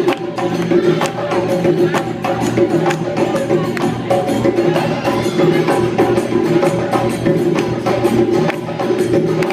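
Live Senegalese sabar drum ensemble playing a dense rhythm of sharp hand-and-stick strokes, with a steady held tone beneath.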